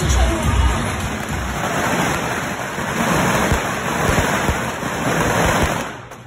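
A long string of firecrackers going off in a dense, rapid, continuous crackle. It follows a moment of loud music with a heavy beat at the start, and it cuts off sharply near the end.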